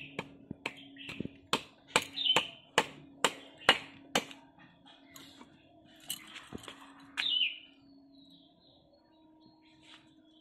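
Sharpening stone struck along the metal blade of a bonti (Bengali curved fish-cutting blade): about ten sharp strokes at two to three a second, which stop after about four seconds. A bird chirps twice.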